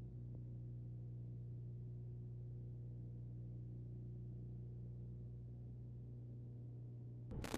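Quiet, steady low drone made of a few evenly spaced tones, from a horror film's soundtrack. A sudden loud noise cuts in near the end.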